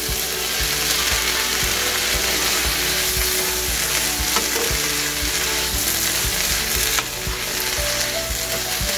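Sliced onions and bell peppers sizzling in oil in a hot frying pan, with a wooden spoon stirring and knocking the vegetables around the pan.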